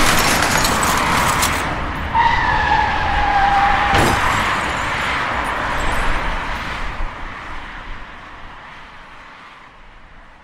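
Car crash sound effects: a loud noisy crash with a falling tyre squeal about two seconds in, a sharp bang about four seconds in, then rattling debris that fades away.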